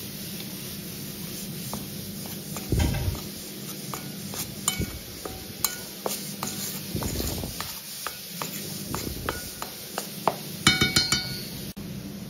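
A metal spoon stirring flour and baking powder in a stainless steel bowl: soft scraping with many small clinks against the bowl, then a quick cluster of ringing clinks near the end.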